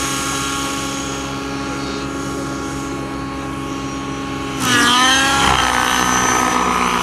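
Nitro-engined radio-controlled helicopter running, engine and rotor blades holding a steady pitch as it skims low over the ground. A little over four and a half seconds in it gets louder and the pitch dips and then climbs as the helicopter pulls up and away.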